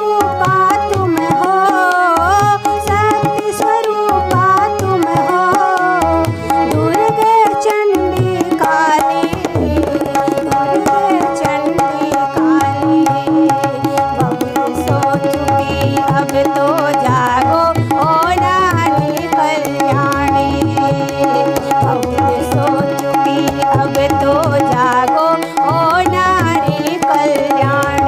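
Tabla playing a steady rhythm, with the deep bayan strokes repeating under a harmonium's held drone and melody, as the instrumental accompaniment to a folk song.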